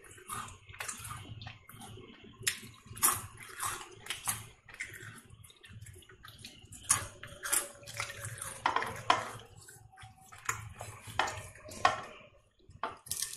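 Bingo ridged tomato-flavoured potato chips being bitten and chewed close to the microphone: irregular sharp crunches, a few very loud. Near the end, fingers pick crumbs off a plate.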